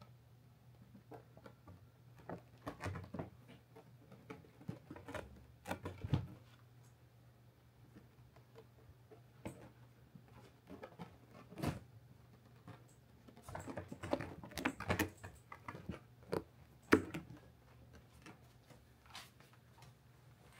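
Irregular scratching and rustling in short clusters, from a pet shifting about inside a felt cat cave, over a low steady hum.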